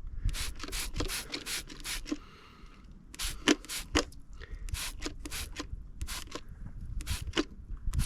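Hand spray bottle squirting in quick repeated trigger pulls, about three hissing sprays a second with a short pause in between, spraying the newly mounted tractor tire to check it for air leaks.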